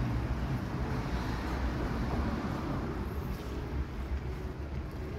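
Metal skimmer turning and scraping rice in a large kazan of pilaf, over a steady low rumble.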